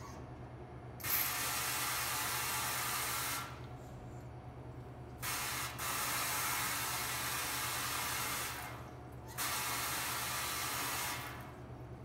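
Commercial pre-rinse spray valve turned on three times, each time a hissing spray of water for two to three seconds, into a stainless steel sink.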